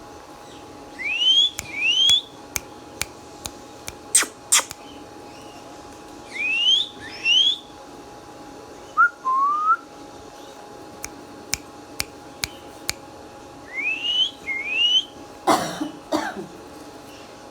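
Indian ringneck parakeet giving quick rising whistles, mostly in pairs, three times, with one lower rising whistle in between. Several sharp clicks sound around the first pair, and a short raspy cough-like burst comes near the end.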